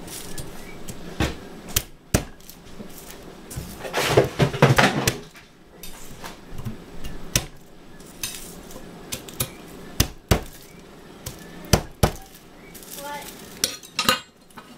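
Chef's knife knocking on garlic cloves against a granite cutting board, cracking them so the skins come off. Sharp single knocks come scattered through, with a louder, denser run of knocking and scraping about four seconds in.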